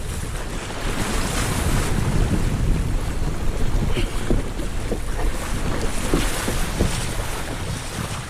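Wind buffeting the microphone over water rushing and splashing along a Hobie kayak's hull as it moves under way.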